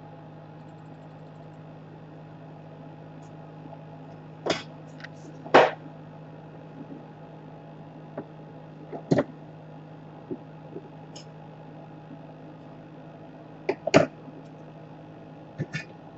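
A few sharp clicks and taps of small parts and tools being handled during a laptop repair, scattered and irregular, over a steady low electrical hum.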